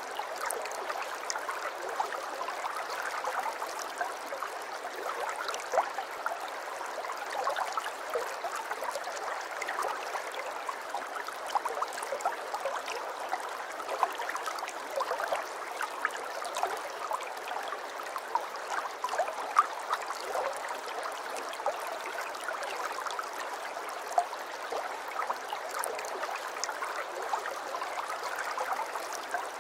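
Water running in an aquarium: a steady wash of water sound with many small pops and splashes scattered through it.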